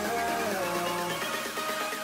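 Background music, electronic in style, with melodic lines sliding in pitch.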